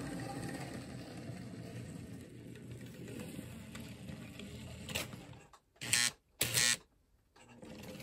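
Märklin HO-scale V60 diesel model locomotive running along the track past the camera: a steady low motor hum and wheel rumble that fades after about five seconds. About six seconds in come two short, loud sounds about half a second apart.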